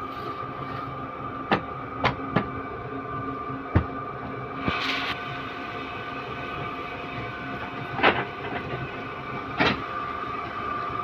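Paper-cutting guillotine machine running with a steady hum, with several sharp knocks and clacks as stacks of notebooks are handled and squared on its bed, and a brief hiss about halfway through.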